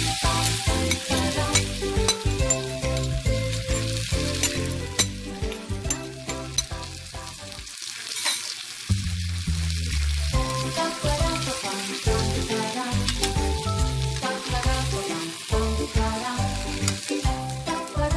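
Fried tofu and vegetables sizzling in a hot frying pan as sweet and sour sauce is poured over them and stirred in, with a spatula clicking against the pan now and then. Background music plays throughout.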